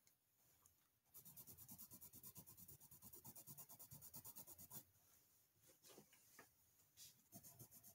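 Colored pencil scribbling on paper in quick, even back-and-forth strokes, laying down a swatch of color. It is faint. The run of strokes stops just under five seconds in, and a few short scratches follow.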